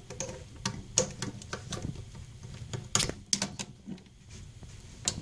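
Irregular clicks and light knocks of a hand tool and plastic fittings being handled at a toilet's supply-line connection to the fill valve, loudest about three seconds in.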